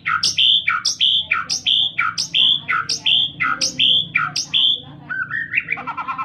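White-rumped shama singing: one loud whistled phrase, a sharp downward-swept note followed by a held whistle, repeated evenly about two to three times a second, then a quick rising run of short notes near the end.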